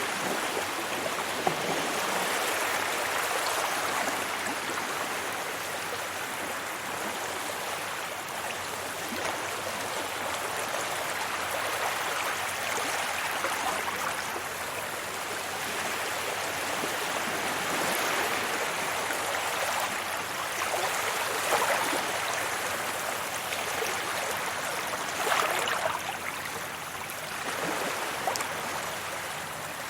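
Sea waves washing onto a beach: a steady rush of surf and foaming water that swells and eases, with a few sharper splashes past the middle.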